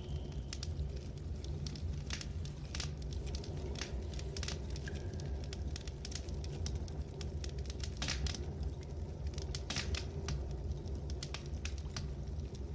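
Open torch flame burning, with irregular sharp crackles over a steady low rumble.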